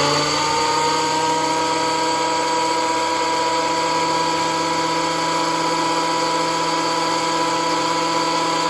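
Electric thickness planer's motor and cutterhead finishing their spin-up in the first second after switch-on, then running at full speed with a steady whine.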